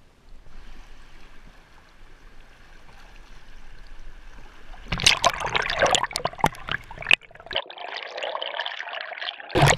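Shallow river water running faintly, then loud splashing with sharp cracks about five seconds in as the camera goes under the surface, followed by muffled underwater gurgling and one loud knock near the end.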